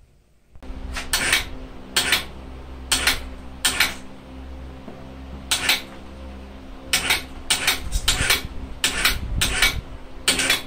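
Sharp metallic clinks and clanks of steel hoist chain and metal hardware, about twenty at irregular intervals and often in quick pairs, starting about half a second in, over a steady low hum.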